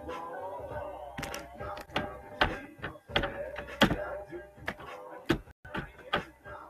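Irregular sharp thumps and knocks, a dozen or so, with the sound cutting out briefly about five and a half seconds in.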